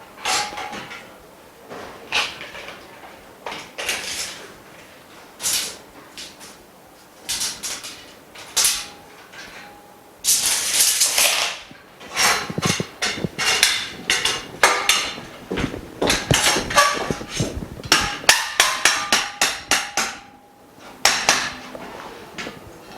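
Metal frame bars being knocked and tapped into place during assembly: irregular sharp knocks and clinks, a short scraping rush about ten seconds in, then a run of rapid tapping in the second half.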